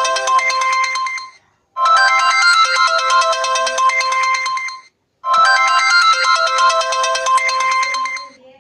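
Melodic phone ringtone, loud, playing the same short electronic tune over and over: each run lasts about three seconds and is followed by a brief silence before the next.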